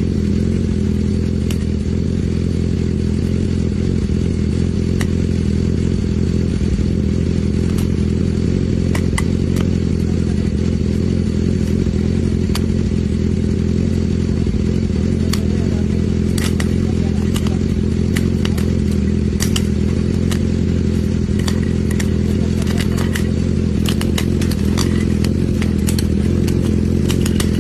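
Motorcycle engine idling steadily while popcorn kernels heated inside its muffler pop with sharp clicks, few at first and coming thicker and faster in the second half.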